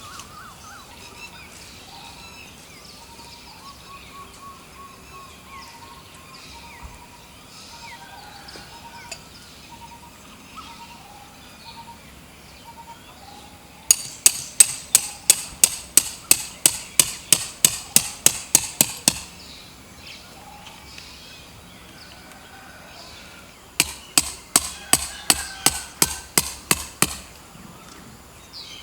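Tent stakes being hammered into the ground: two runs of quick, ringing strikes, about four a second, the first lasting about five seconds from midway, the second about three seconds near the end. Birds chirp throughout.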